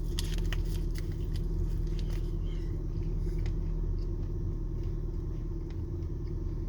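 Steady low hum, with faint scattered clicks of someone chewing a soft, chewy peanut granola bar.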